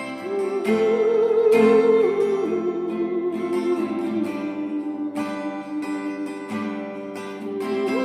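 Instrumental music: plucked-string accompaniment under a held, wavering melody line with vibrato.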